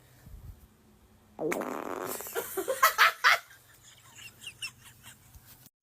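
A person farting: a loud, buzzing fart about a second and a half in that breaks up into several short, sharp puffs.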